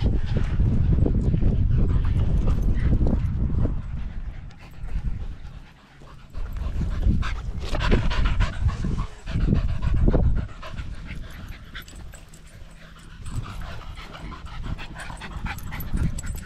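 Dogs panting hard close to the microphone, loudest about seven to ten seconds in, with a low rumbling noise during the first few seconds.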